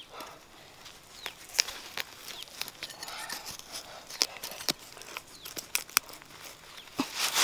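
A knife blade digging and scraping in dry soil around a cassava root, with irregular sharp scratches and clicks as it strikes earth and roots, and loose soil crumbling.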